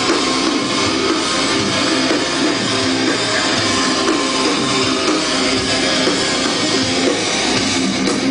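Rock band playing live through a PA, electric guitars and drum kit in a dense, steady wall of sound, heard from within the audience.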